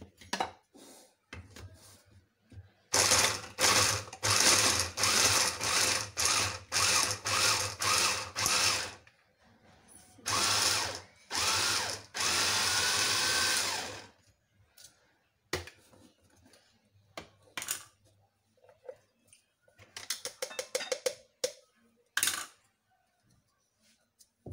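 Small electric mini chopper with a press-down top grinding a whole head of garlic, skins on. It runs in a quick string of short pulses, then one longer steady run of about two seconds. Near the end there are a few clicks and knocks.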